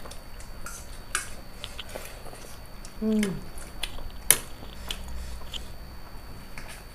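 People chewing noodles, with forks clicking and scraping on ceramic plates; the sharpest clink comes a little past four seconds in. A short, falling voice sound is heard about three seconds in.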